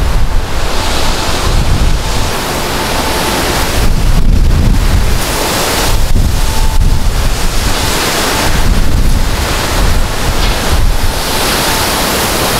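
Wind buffeting the microphone: a loud, gusting low rumble with a hiss over it, swelling and easing every second or two.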